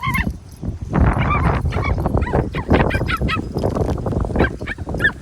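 Puppies yelping and whimpering in many short, high-pitched cries.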